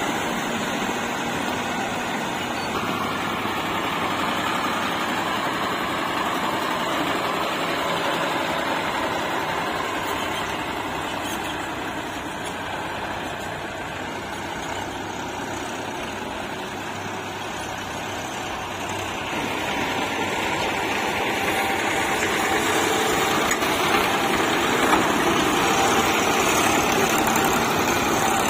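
Tractor diesel engine running steadily, growing louder about two-thirds of the way through.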